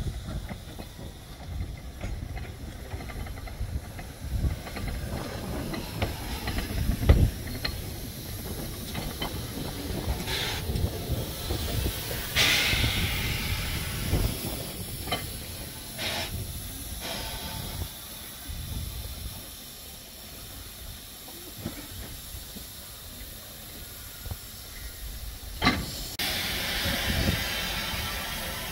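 Narrow-gauge steam locomotives simmering, with repeated bursts of steam hissing, the longest a couple of seconds, under a steady low rumble. A single sharp knock about seven seconds in.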